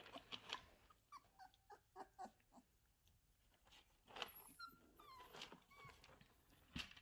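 Four-week-old Labrador puppies giving short, faint whimpers and squeaks, mixed with small knocks and scuffles as they move about.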